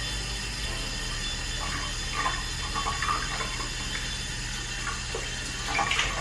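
Water being worked into a wig's hair: faint, scattered wet handling sounds and small clicks over a steady background hum, with a brief louder one near the end.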